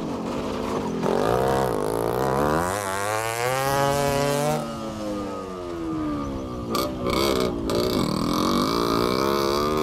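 Motorcycle engines revving as riders pass close by: the pitch climbs for a few seconds, drops off about halfway through, then climbs again near the end.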